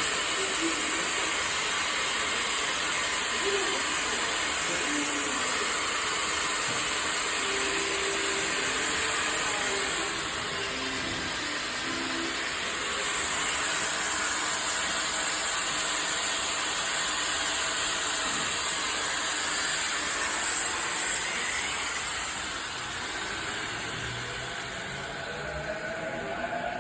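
Running noise of a JR East E233-series commuter train's trailer car (SaHa E233-14), dominated by a steady high-pitched hiss; this is the abnormal noise flagged in this car. A rising whine joins in near the end.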